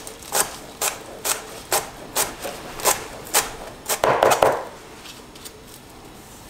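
Chef's knife chopping fresh cilantro on a cutting board, steady knocks about two a second. A little past halfway the chopping stops for a brief scraping rustle as the chopped herbs are pushed together, then it goes quieter.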